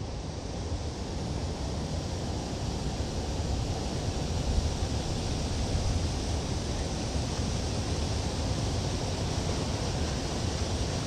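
Steady rush of river water pouring over a low dam's spillway, with a deep rumble underneath.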